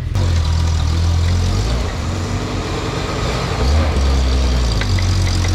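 Off-road vehicle's engine running at low revs, its note shifting twice as the load changes, with a few faint clicks near the end.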